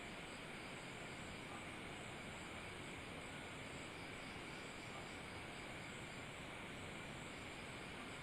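Faint, steady hiss of room tone in a quiet storeroom, with a thin high tone held steady throughout and no distinct events.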